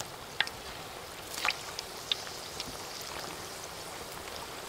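Hot oil bubbling and sizzling in a large wok as round balls of food deep-fry: a steady hiss with a few sharp pops.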